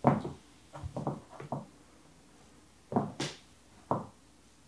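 Casadei Blade stiletto heels knocking on a hard floor in several uneven steps, about seven sharp clicks, one with a brief scrape.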